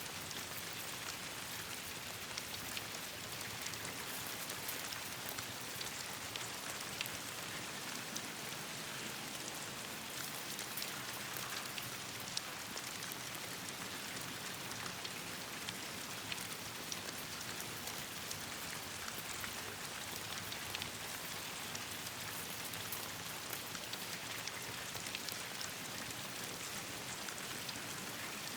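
Steady rain falling: an even hiss with many small sharp ticks of drops landing.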